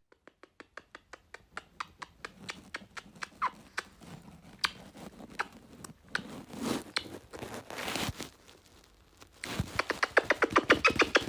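A rapid series of light clicks or taps, about five a second, fainter at first and denser and louder near the end.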